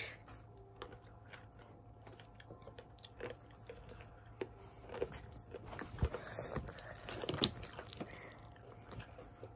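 Someone chewing and crunching sour candy close to the microphone: scattered small clicks and crackles, busiest from about five to seven and a half seconds in.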